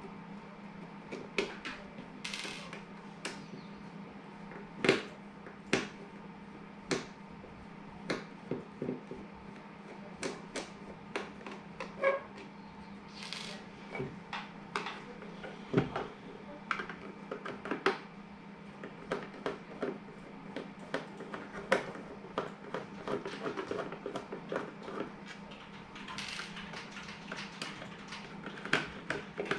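Irregular clicks and knocks of a hard plastic device enclosure being handled and turned over on a wooden bench while a small screwdriver works on it, with a few short scrapes, over a steady low hum.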